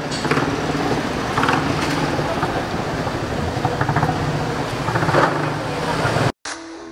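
Street traffic noise: a steady low engine hum under an even roar, with faint voices. It cuts off suddenly near the end.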